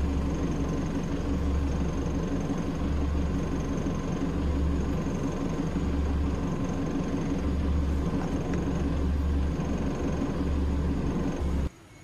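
A vehicle engine idling: a steady hum with a deep throb that swells and fades about every second and a half. It cuts off suddenly just before the end.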